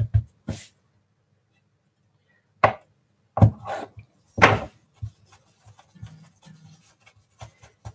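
Scattered knocks and scrapes of hands and a utensil working gnocchi dough on a floured counter: a few knocks at the start, then a cluster of sharper knocks about three to four and a half seconds in.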